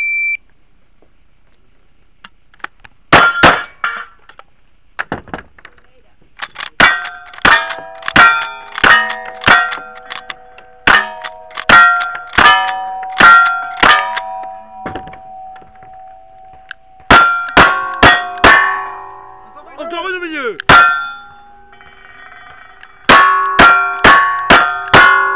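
A shot timer beeps once, then strings of gunshots from single-action revolvers and a lever-action rifle, each shot followed by steel targets ringing with a clang. The last five shots come about half a second apart.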